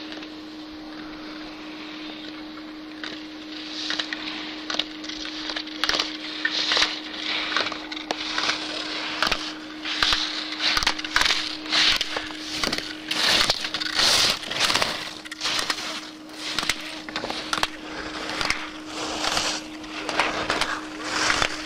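Slalom skier's edges scraping on hard snow at each turn, a rush about every second, mixed with sharp clacks of gate poles being knocked aside. A steady low hum runs underneath.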